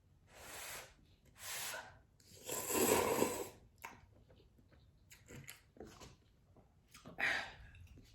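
Eating instant cup noodles: three noisy slurps, the longest and loudest about three seconds in, then soft chewing and wet mouth clicks, and one more short slurp near the end.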